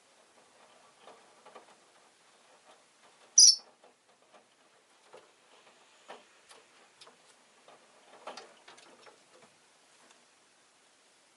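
A rosy-faced lovebird gives one short, sharp, high-pitched call about three and a half seconds in. Faint scattered clicks and light rustling run around it, with a brief cluster near eight seconds.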